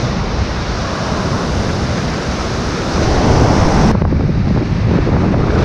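Ocean surf washing up the beach and wind buffeting the microphone, a steady loud rush with no distinct events. The rush swells about three seconds in, and the sound changes abruptly about a second later as the high hiss drops away and the wind rumble takes over.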